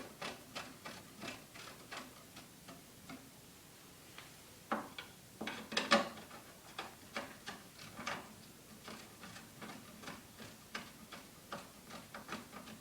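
Light, even clicking, about three clicks a second, as a paramotor cage's side pole is screwed by hand into its threaded socket, with a few louder knocks around five to six seconds in.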